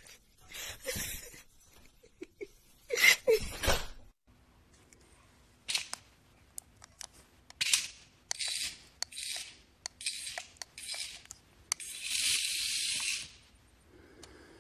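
A cat scrambles and lands with a thud as it loses its grip on a metal bed frame. Then a cat hisses at a toy snake in a string of short, sharp hisses, ending with one longer hiss.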